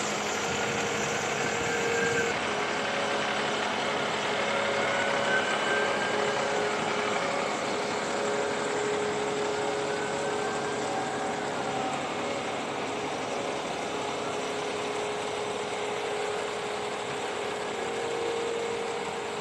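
Diesel engine of a fire department aerial ladder truck idling steadily.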